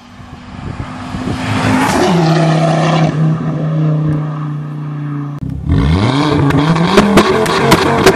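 Ford Focus ST's turbocharged 2.5-litre five-cylinder accelerating hard toward the listener, its note building and dropping in pitch about two seconds in, then holding a steady drone. After a sudden cut the engine is revved up from low, with several sharp cracks near the end.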